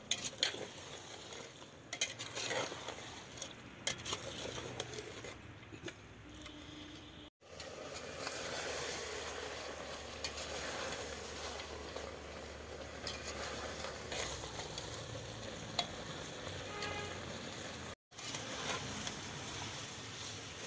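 Beef and onions sizzling in oil in an aluminium pressure cooker pot while a metal spoon stirs them, with scattered clicks and scrapes of the spoon against the pot. The sound drops out briefly twice.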